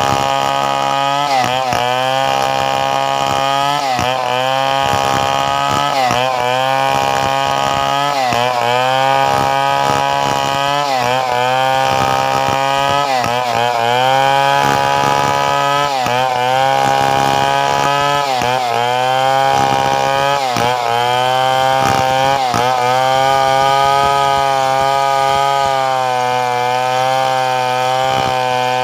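Two-stroke chainsaw running at high revs while cutting wood. Its pitch dips briefly and recovers every second or two as the chain is pushed into the cut under load, and it holds steadier near the end.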